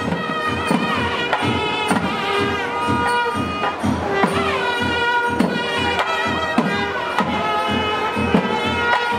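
Nadaswaram and thavil playing South Indian temple procession music: a reedy wind melody of long held notes that slide in pitch, over steady drum strokes.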